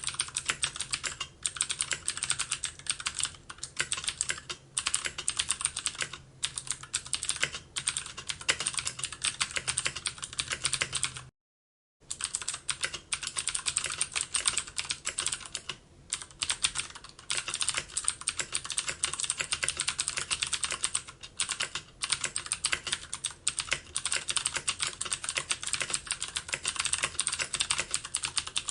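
Continuous fast typing on a computer keyboard: a dense stream of key clicks with short pauses between runs. The sound cuts out completely for about half a second near the middle.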